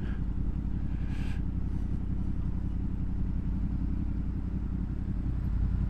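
Honda VFR's V4 motorcycle engine running steadily, a low engine note at an even level.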